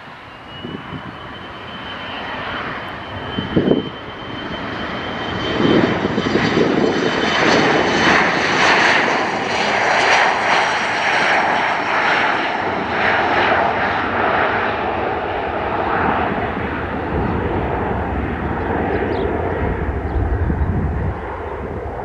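Jet airliner passing close by. A high steady whine is heard at first, then the engine noise swells and is loudest in the middle before easing slightly near the end.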